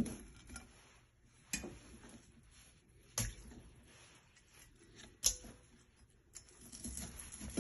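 A few sharp clicks and light knocks, about two seconds apart, with faint handling noise between them, from handling the food and utensils while preparing raw chicken feet.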